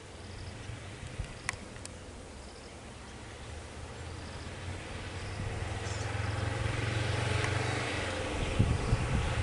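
Vehicle engines running at idle in a low steady hum. A small truck's engine grows steadily louder as it drives up close over the second half.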